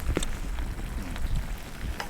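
Campfire crackling: small irregular pops and ticks over a steady low rumble.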